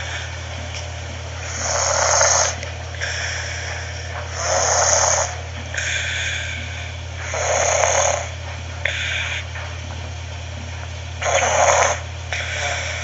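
A sleeping person snoring through mouth and nose, with four loud snores about every three seconds and a softer breath after each one. A steady low hum runs underneath.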